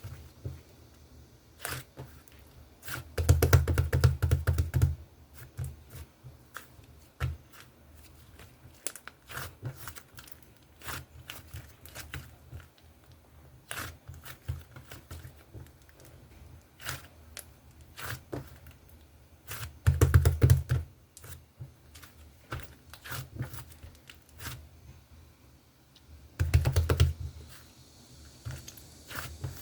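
Sky-blue slime being pressed and worked by hand, making many small clicking pops, with three louder squishing, handling stretches of a second or two each.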